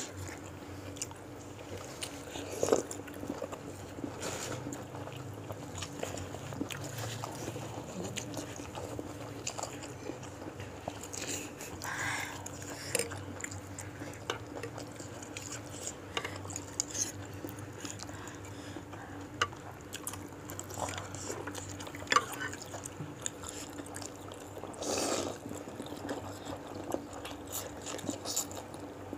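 Eating bakso soup: scattered light clicks of a fork and spoon against the bowl, with chewing and slurping of broth. A faint steady hum sits underneath.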